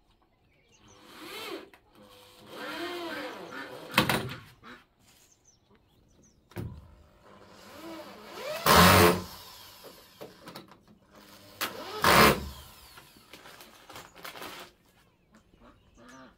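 Corded electric drill run in short bursts into wooden floor planks, the motor's pitch rising and falling with the trigger. The loudest bursts come about 4, 9 and 12 seconds in.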